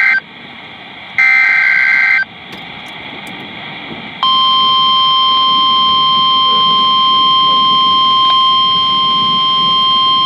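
Emergency Alert System tornado warning: two short bursts of digital header data tones, then about four seconds in a loud, steady single-pitched alarm tone begins and holds. This is the weather-radio warning tone that announces a tornado warning.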